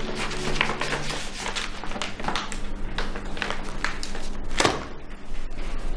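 Sheets of paper rustling as they are handled and leafed through, in irregular crackly strokes.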